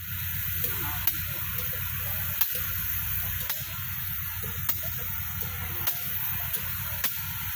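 USATC S160 2-8-0 steam locomotive no. 1702 hissing steam steadily, with a sharp tick about once a second.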